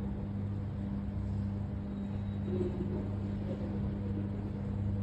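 Steady low hum with a faint rumble beneath it, unchanging throughout.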